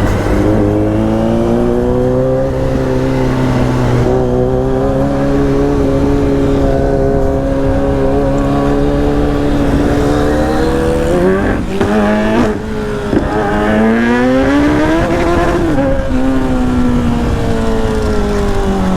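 Kawasaki Z900's inline-four engine pulling steadily under throttle, its note slowly climbing. Around two thirds of the way through the revs jump a few times with gear changes, then climb for about three seconds and drop sharply at an upshift before it settles into steady running.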